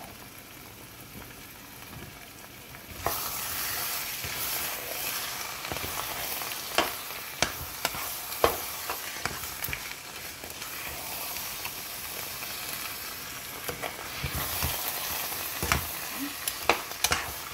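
Spinach, crab, meat and carrot stew sizzling in a hot pan while being stirred, the sizzle growing louder about three seconds in. A utensil knocks and scrapes against the pan in sharp clicks, several times.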